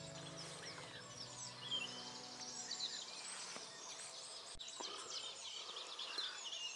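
Dawn chorus of many small songbirds singing at once, with short overlapping chirps and trills.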